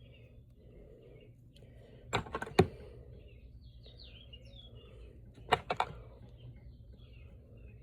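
Metal sockets and tools clacking as they are handled and set into a tool box, in two short clusters of knocks about three seconds apart. Faint bird chirps in between.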